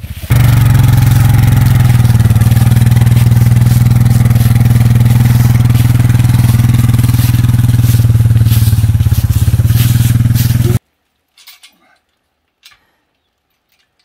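ATV (four-wheeler) engine running close by, loud and steady with a fast low pulse; it jumps up in level just after the start and cuts off abruptly about eleven seconds in, leaving only a few faint knocks.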